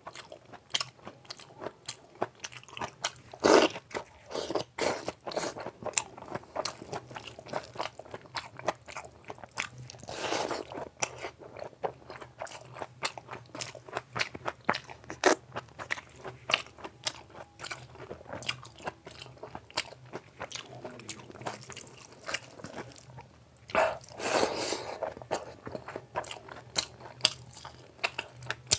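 Close-miked chewing of a mouthful of rice and curry eaten by hand: a constant run of short wet mouth clicks, with a few louder moments about 3, 10 and 24 seconds in.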